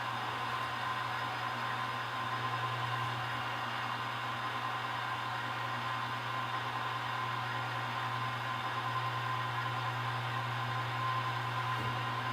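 Milling machine running steadily, a constant hum with a high whine, while a countersink chamfers drilled holes in steel plate ahead of tapping.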